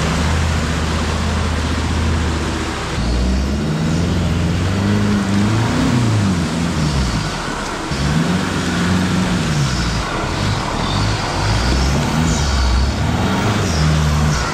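Four-wheel-drive engines labouring through a deep mud bog. First comes a steady drone. From about three seconds in, an engine revs up and down repeatedly as the vehicle pushes through the muddy water.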